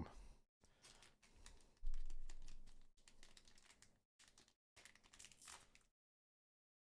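Trading cards and foil booster packs being handled and shifted on a tabletop: light clicks and rustling, with a louder thump about two seconds in. The sound cuts out to dead silence twice, near the end for about a second.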